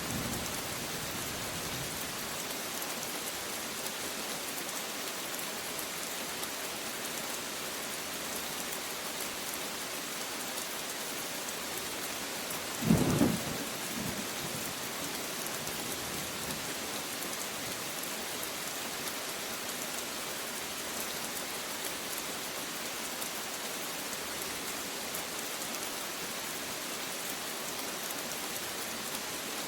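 Steady rain falling, with one short thunder clap about halfway through.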